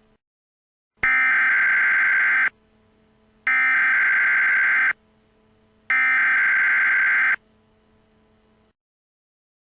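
Emergency Alert System SAME header: three identical bursts of digital data tones, each about a second and a half long with about a second's pause between them, signalling the start of an emergency alert broadcast.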